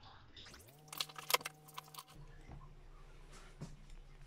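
Handling clatter: a quick burst of sharp clicks and rattles about a second in, with fainter clicks after it, over a faint steady low hum.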